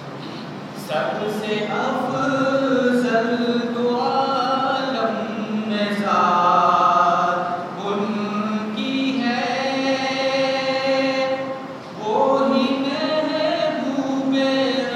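A man's voice singing a naat (Urdu devotional verse in praise of the Prophet) unaccompanied, in long held, wavering lines with short pauses between phrases.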